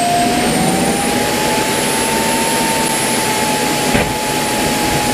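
Homemade turbojet engine with a radial turbine, running: a steady jet roar with a whine that rises a little in pitch over the first two seconds, then holds.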